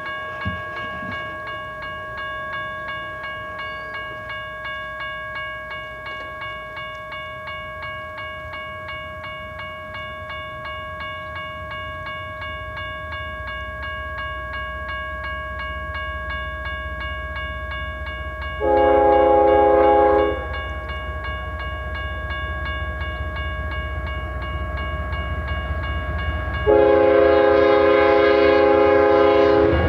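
Grade-crossing warning bell ringing steadily with a rapid repeated strike as a freight train approaches, its low rumble building. The locomotive horn sounds a short blast about two-thirds of the way through, then a long blast near the end.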